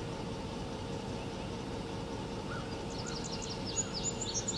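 Outdoor countryside ambience: a steady background hiss with a faint steady hum, and songbirds chirping, with a quick run of high chirps starting about three seconds in.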